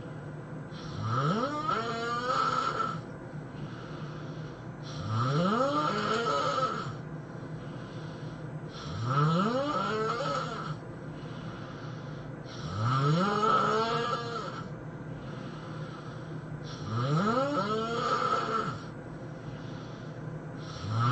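A person snoring loudly, one long snore about every four seconds, five in all, each rising in pitch, with a sixth starting at the end. A low steady hum runs between the snores.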